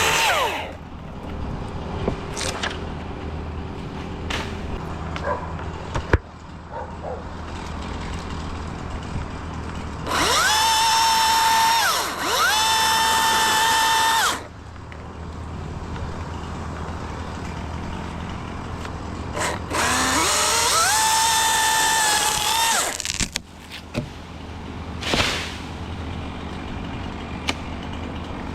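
Cordless electric chainsaw run up to speed in three bursts of about two to three seconds, each a steady high motor whine that rises at the start and winds down when the trigger is released.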